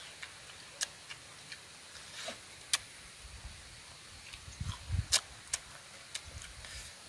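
A person eating by hand close to the microphone: wet mouth clicks and chewing, with scattered sharp clicks throughout and a louder cluster of low thumps and clicks about five seconds in.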